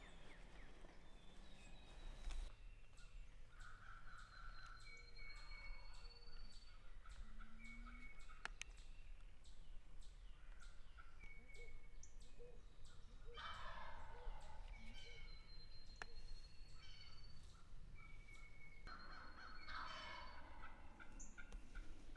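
Wild turkey gobbler gobbling twice, about 13 and 19 seconds in, over songbirds singing repeated thin whistled notes.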